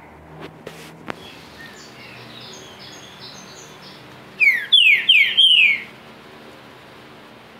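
Green-winged saltator (trinca-ferro) singing its 'pedrada' song: a few soft high notes, then about four seconds in a loud phrase of four falling whistled notes lasting about a second and a half. A few clicks come near the start.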